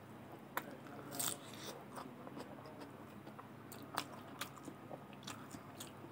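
Close-miked mukbang eating sounds: a person chewing a mouthful of rice and fried beans, with wet mouth clicks and smacks, the sharpest about half a second, a second and four seconds in. A faint steady low hum runs beneath.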